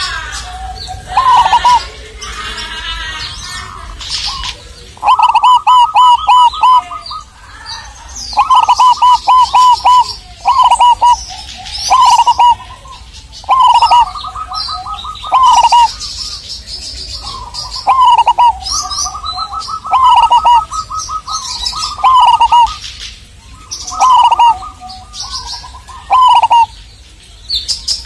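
Zebra dove (perkutut) singing, repeating its phrase of rapid, stuttering coo notes every second or two without a break, with higher chirps of other small birds behind it.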